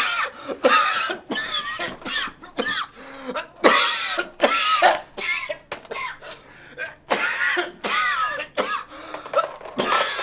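A man coughing in a long, unbroken fit: many hacking coughs one after another, about two or three a second.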